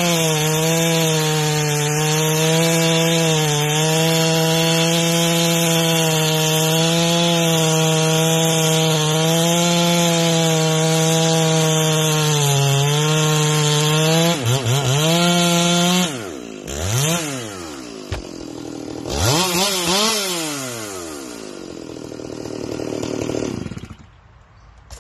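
Ported Stihl MS461 two-stroke chainsaw with a 36-inch bar running at full throttle through cypress, its engine pitch steady and slightly wavering under load. About fourteen seconds in it dips. Then the engine drops off, revs up and down twice, winds down, and falls away near the end as the cut is finished.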